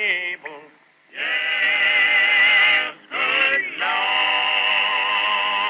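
Male voices singing together: a short phrase, then two long held notes with vibrato, joined by a brief slide about three seconds in.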